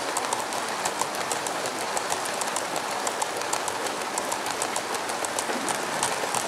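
Model freight train of tank wagons rolling past, its wheels clicking rapidly and irregularly over the rail joints, over steady background noise.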